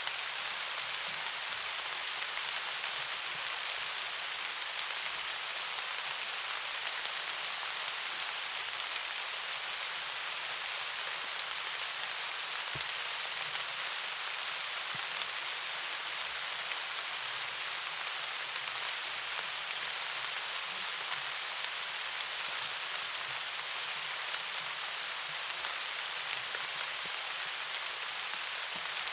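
Steady rain falling, an even hiss with an occasional faint tick.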